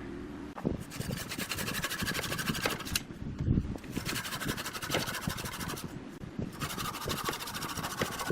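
Wood lathe running while a tool works the spinning workpiece, in three passes of about two seconds each with short breaks between, each pass a loud, fast rhythmic scraping.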